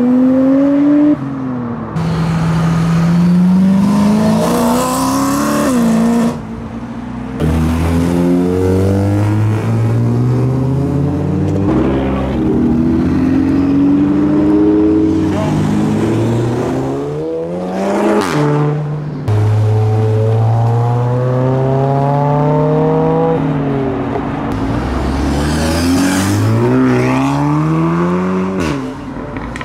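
Modified cars accelerating away one after another, their engines rising in pitch through each gear and dropping back at each shift. The sound jumps abruptly from one car to the next several times.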